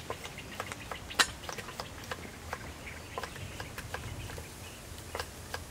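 Knives tapping on wooden chopping blocks as shallots and chilies are chopped by several people at once: quick, irregular taps, with one sharper knock about a second in.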